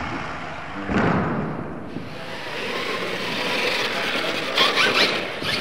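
A radio-controlled scale monster truck driving on a dirt track, with a steady run of motor and tyre noise. There is a heavier thud about a second in as the truck comes down from a jump, and a few sharp clicks near the end.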